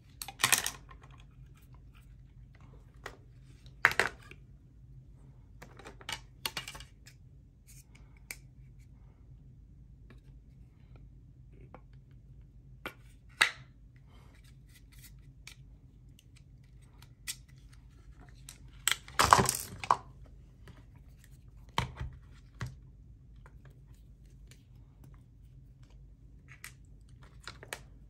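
Hard plastic motor-housing parts of a Dyson Pure Cool Me fan handled by hand: scattered small clicks and knocks, loudest in a short clatter about two-thirds of the way through.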